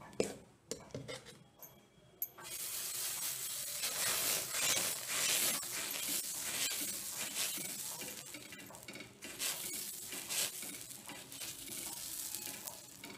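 Dosa batter sizzling on a hot cast-iron tawa while a ladle spreads it round in circles. The sizzle comes on suddenly about two seconds in, after a few light clicks, then slowly eases.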